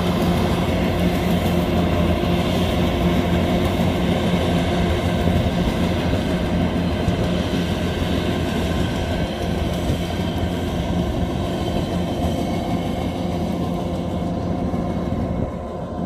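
Kubota DC-105X combine harvester running steadily, its diesel engine and threshing machinery giving a constant low hum with a rattle; it eases slightly near the end.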